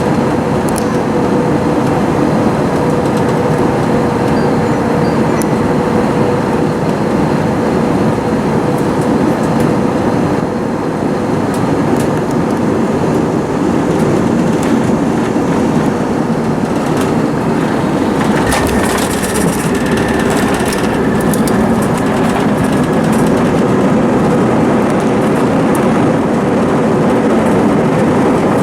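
Steady rumble of an Airbus A321's engines and rolling wheels, heard inside the passenger cabin as the airliner rolls along the ground after landing, with a steady droning hum. About two-thirds of the way through, a hiss and a higher steady tone join in.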